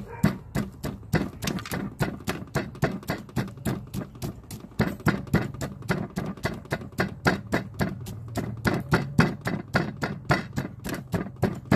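Rapid, even knocking of a cook working food against a hard surface, about five strokes a second, over a low steady hum.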